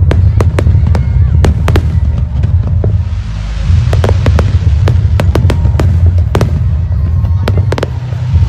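Aerial firework shells bursting in quick succession: many sharp bangs a second over a continuous deep rumble, with a spell of hissing crackle from about three seconds in.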